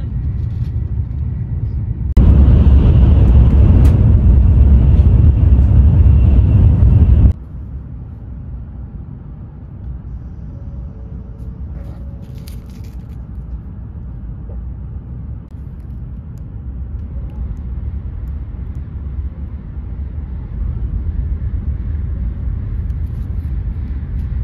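Shinkansen bullet train running, heard from inside the carriage as a steady low rumble. From about two seconds in, a much louder rushing noise takes over for about five seconds and cuts off suddenly. A few light crackles come later.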